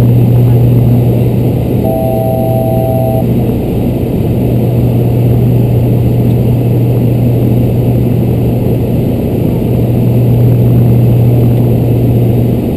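Twin PT6A turboprop engines and propellers of a Beechcraft King Air droning steadily inside the cockpit in flight. A low hum holds under a dense rushing noise. About two seconds in, a steady two-pitch electronic tone sounds for about a second.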